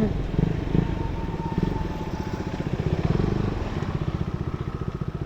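KTM Duke 250's single-cylinder four-stroke engine, breathing through an aftermarket exhaust, running steadily as the motorcycle is ridden, its firing pulses coming fast and even.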